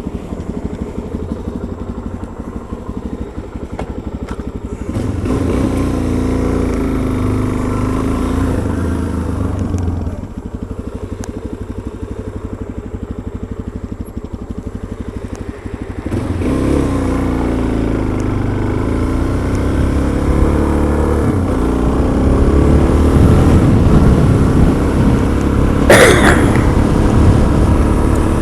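Motorcycle engine idling with an even low pulse, then pulling away and accelerating; it drops back to idle for several seconds and pulls away again, running harder toward the end. A brief sharp noise cuts in near the end.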